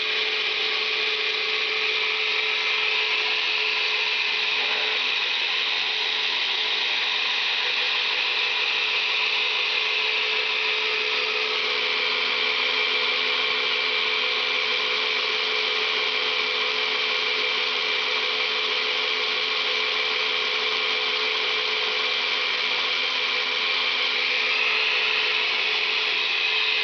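Yonanas frozen-fruit dessert maker's electric motor running steadily while frozen strawberries and banana are pushed down its chute and churned through the spinning blade into soft-serve. It makes a constant, even whirring hum with a steady whine.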